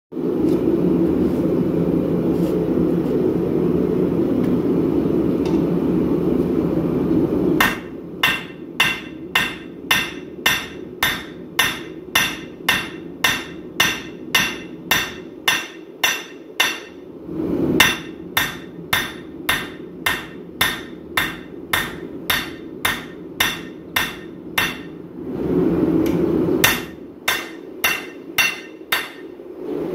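A steady burner rush, typical of a propane forge, for about the first eight seconds. Then a hand hammer striking hot 5160 steel on an anvil, about two ringing blows a second, with the rush briefly coming back in two short pauses.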